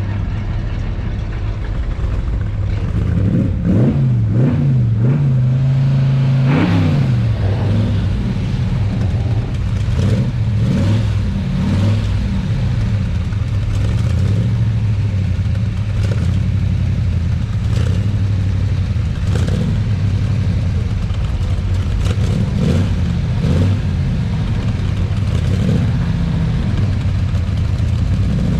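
Car engine running close by, revved several times about three to seven seconds in, its pitch rising and falling, then settling back to a steadier run with small blips of the throttle.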